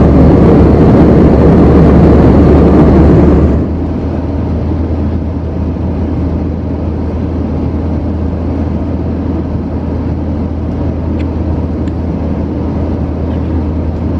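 Steady rushing roar of a jet airliner cabin in flight, with a constant low hum underneath. It is louder at first, then drops to a quieter steady level about a third of the way through.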